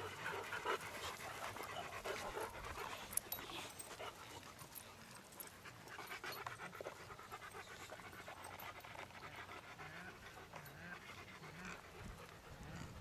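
Dog panting.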